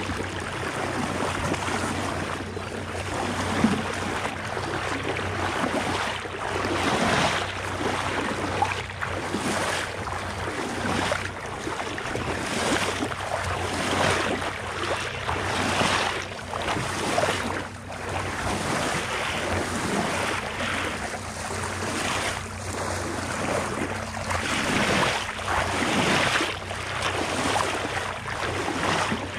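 Boat motor running steadily at low speed, with water sloshing and splashing against the hull in repeated surges about every second or two, and wind on the microphone.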